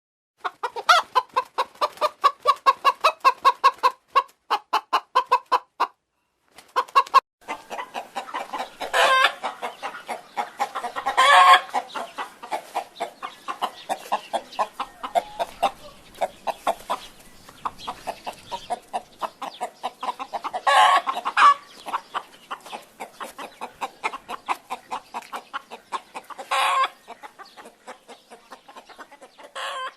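Chicken clucking: a quick run of short clucks, about five a second, then more irregular clucking broken by several louder, longer calls.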